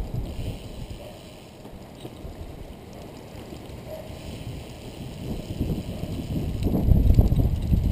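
Wind buffeting the microphone of a camera riding on a moving recumbent trike: a low, rumbling rush that eases off about a second in and builds again from about five seconds in.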